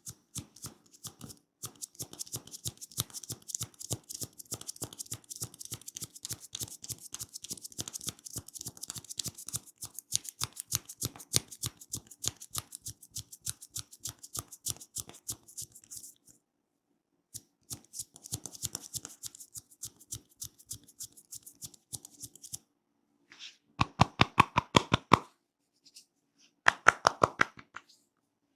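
Hands massaging a scalp through the hair: fast, crackly rubbing of fingers in the hair, with a pause of about a second just past halfway. Near the end come two short bursts of louder, rapid taps of about seven strokes a second, typical of tapping massage on the head.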